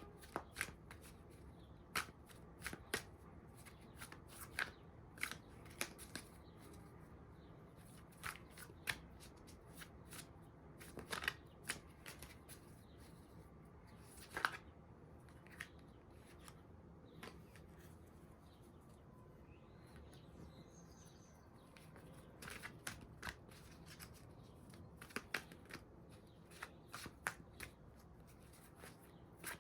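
A deck of divination cards being shuffled by hand: irregular sharp card clicks and slaps, some in quick clusters, with a quieter pause near the middle.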